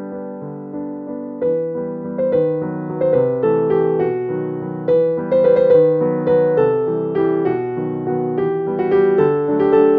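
Background piano music: a gentle run of notes that grows fuller and louder about a second and a half in.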